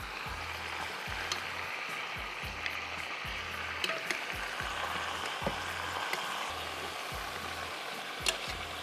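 Whole mutton leg sizzling as it fries and roasts in hot oil in a pot, a steady hiss with a few sharp pops.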